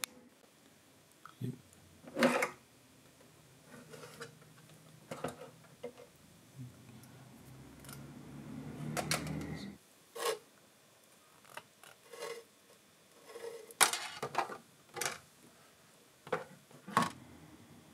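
A series of sharp clicks and knocks, about a dozen spread irregularly, from hard plastic items and packaging being handled. Near the middle a low steady hum builds for about two seconds and cuts off suddenly.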